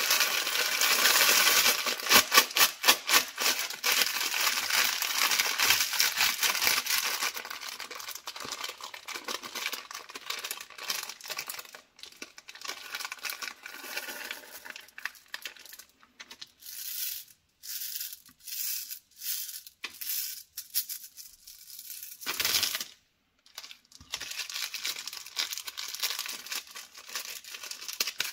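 Plastic M&M's candy bag crinkling as it is handled and torn open, then small clicks and rattles as the hard-shelled candies pour into a palm and knock together. The crinkling is densest in the first quarter and sparser through the middle. Near the end it turns to the steady crinkle of a chocolate-bar wrapper being handled.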